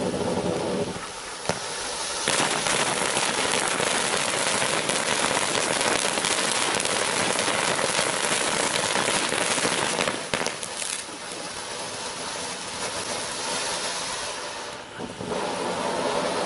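Iron Man 5 Minute Safari fireworks fountain spraying sparks with a steady hiss. From about two seconds in, it turns into a louder, dense crackling spray for about nine seconds, then falls back to a quieter hiss that dips briefly near the end before picking up again.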